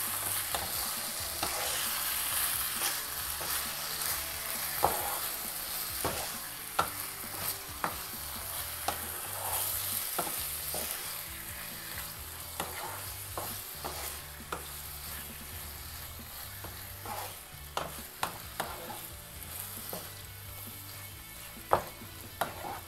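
Raw chicken pieces sizzling in masala in a non-stick kadai while a wooden spatula stirs them, with irregular knocks and scrapes of the spatula against the pan. The sizzle slowly gets quieter, and one sharper knock comes near the end.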